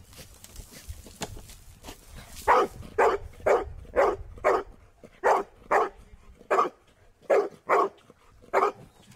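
A search-and-rescue dog barking repeatedly at a barrel where a person is hidden, about eleven sharp barks at roughly two a second starting some two and a half seconds in: the dog's bark alert signalling that it has found the hidden person.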